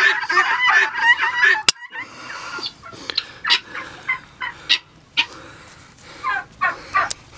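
Guinea fowl calling in a loud, fast, rhythmic chatter that breaks off just under two seconds in. At that moment comes a single sharp snap, which fits horse hoof nippers cutting through a pig's claw. Scattered short calls and another click follow.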